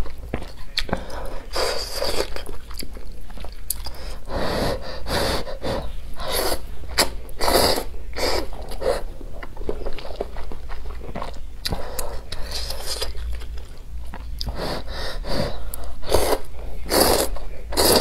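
A person slurping noodles off chopsticks and chewing them close to the microphone: repeated short slurps with wet chewing between them.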